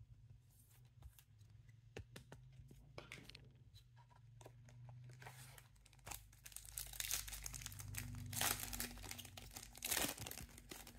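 A foil trading-card pack wrapper, a 2024 Donruss Elite hobby pack, is crinkled and torn open in the second half, loudest near the end. Before that come a few light clicks and taps from handling cards in a plastic holder.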